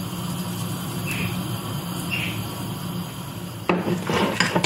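Spice shakers handled while seasoning a pot. There are two faint shakes of salt over the pot, then about three and a half seconds in a burst of sharp knocks and clatter as the shaker and jars are put down and picked up. A steady low hum runs underneath.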